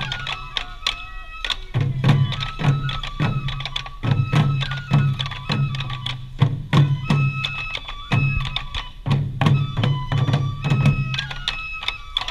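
Japanese festival music: taiko drums beating a steady rhythm under a high bamboo flute melody of held notes, with sharp clicking strikes over the top.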